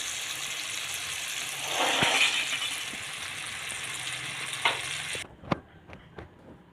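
Chopped red chillies and tomato sizzling in hot oil in a frying pan, swelling briefly about two seconds in as a spatula clicks against the pan. The sizzle cuts off abruptly a little over five seconds in, followed by a few light knocks.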